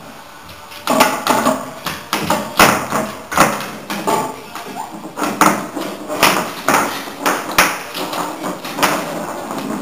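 A bottle knocked and pushed across a wooden parquet floor by a bichon frisé at play: a string of short taps and clatters, about two a second, starting about a second in.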